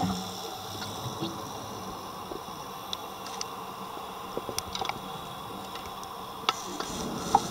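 Underwater ambience picked up by a dive camera: a faint steady hiss with scattered sharp clicks and crackles, a few louder clicks near the end.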